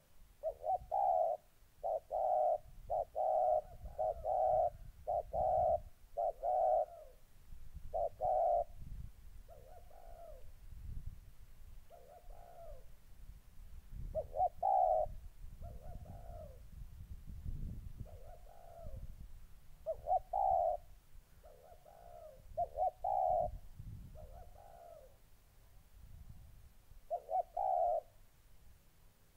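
Spotted doves cooing: a quick run of repeated coos over the first several seconds, then coos spaced a second or two apart. This is a caged decoy dove and a wild male dove calling to contest territory.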